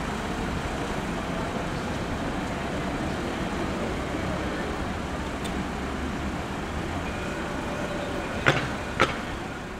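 Steady city street traffic noise, with two sharp knocks about half a second apart near the end.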